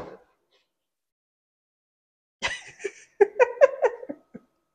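Someone giggling in short, high-pitched bursts of laughter for about two seconds, starting a little past halfway. A single knock of a knife on a plastic cutting board comes right at the start.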